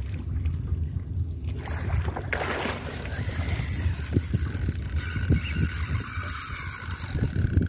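Wind buffeting the microphone and water slapping against a small boat's hull, with a splash about two seconds in. From about three seconds a steady high whine joins.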